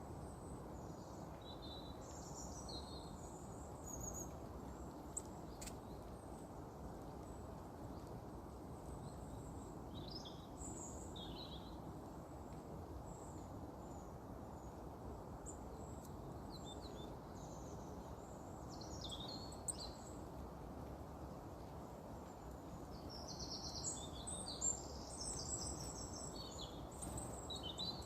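Small wild birds chirping in short, scattered calls over a steady low background noise, the chirping busiest near the end; two faint clicks.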